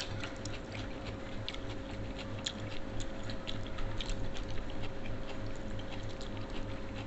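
Two people eating rice and fried food with their hands: chewing, with many small scattered clicks of mouths, fingers and food on plates, over a steady faint hum.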